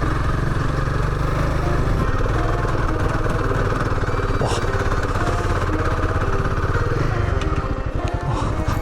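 Royal Enfield Himalayan 450's single-cylinder engine running steadily as the motorcycle is ridden along a rocky dirt road, easing off about seven seconds in.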